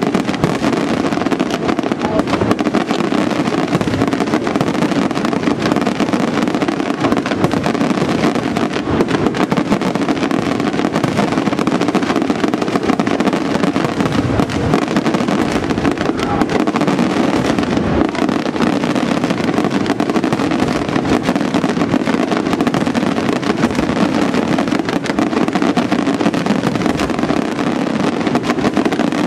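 Aerial fireworks barrage: many shells bursting in quick succession, the reports and crackle running together into one continuous loud rumble without a break.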